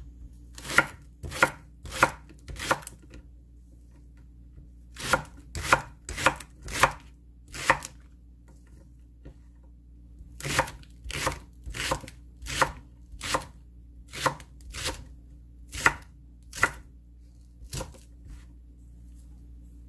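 Chef's knife chopping thick Korean green onion into rounds on a wooden cutting board: single sharp knocks of the blade through the stalks onto the board, about two a second, in three runs with short pauses between.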